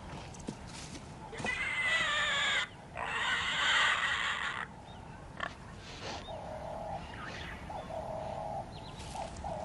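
Warthog piglets squealing shrilly from inside their burrow as a leopard digs at it, in two long bursts. Then comes a run of shorter, lower calls about every second and a half.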